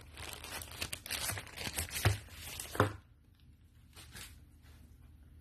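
A package's wrapping being torn open by hand: about three seconds of tearing and crinkling, with two sharp rips near the end of it, then a brief faint rustle.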